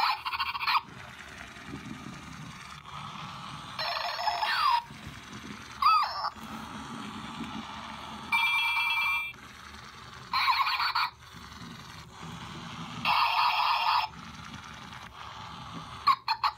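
Zhu Zhu Pets Siberian Husky toy dog playing short electronic sound effects through its small speaker, about seven tinny bursts spaced a second or two apart. A low whir from its drive motor runs between them.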